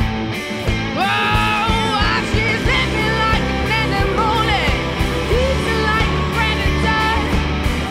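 Rock song with electric guitar and drums, a woman's lead vocal coming in about a second in and holding long sung notes that bend and waver in pitch.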